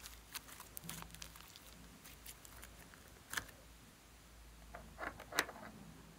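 Faint sticky crackles and clicks of thick slime being stretched by hand and laid onto glossy slime in a glass dish. There is a sharper click about three seconds in and a few louder clicks just after five seconds.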